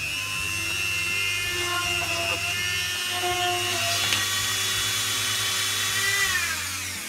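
Flexible-shaft rotary tool (Dremel-type) running at high speed with a steady high whine, then spinning down with falling pitch near the end as it is switched off.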